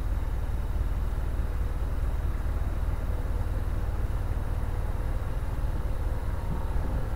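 Narrowboat's engine running steadily as the boat cruises along the canal: an even, low rumble.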